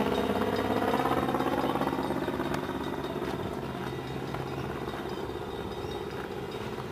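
Steam locomotive Wa 165 running with its train, its mechanical running sound fading gradually throughout.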